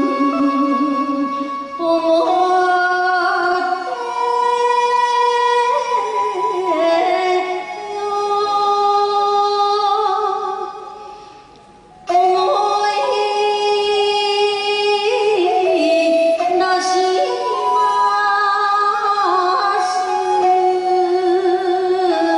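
A woman singing an enka song into a microphone over a karaoke backing track, with vibrato on her held notes. The music drops away briefly about eleven seconds in, then comes back in sharply.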